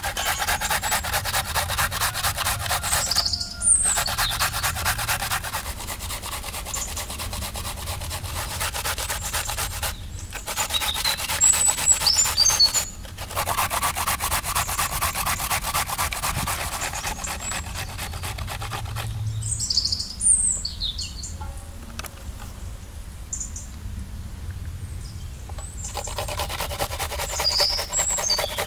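Carrot being grated on a metal box grater: fast, continuous rasping strokes with a few short pauses. Birds chirp briefly now and then.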